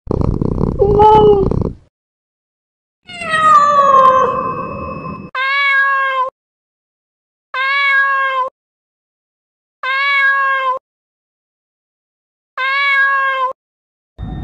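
Domestic cat meowing: six separate meows with dead silence between them. The first two are harsher and longer, the second falling in pitch; the last four are short, evenly pitched and identical, the same meow repeated about every two and a half seconds.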